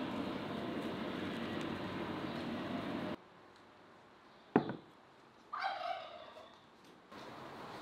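A steady noisy hiss stops abruptly about three seconds in. Then comes a single sharp click, and a second later a short animal call, like a fowl's, that falls in pitch.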